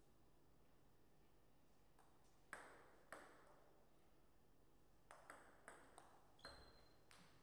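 Faint table tennis ball clicks: two single hits about two and a half and three seconds in, then a quick run of about six bat and table hits in a rally, one of them ringing briefly.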